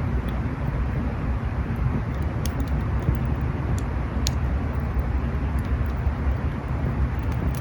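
Campfire burning with a steady low rumble and a few sharp crackles and pops.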